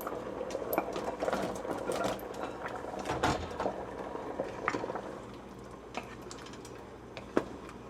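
Cut carrot pieces tipped into a pot of simmering beef curry: a run of quick clattering knocks over the first five seconds, then a couple of single knocks.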